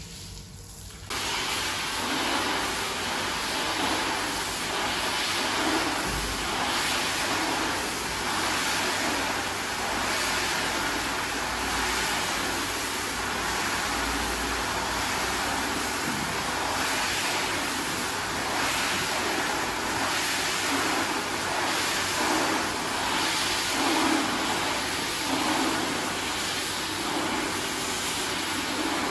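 Rotary carpet-scrubbing machine running, its brush working shampoo foam into a wet rug: a steady motor hum with a wet, hissing scrub that starts suddenly about a second in and swells slightly every second or so.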